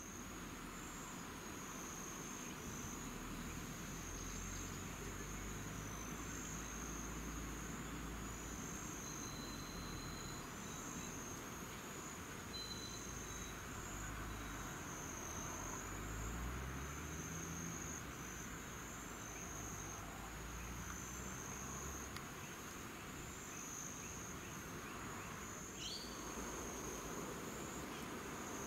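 Steady, high-pitched chorus of insects that pulses slightly, over a low background rumble. A couple of faint bird chirps come in the middle, and there is one short falling bird call near the end.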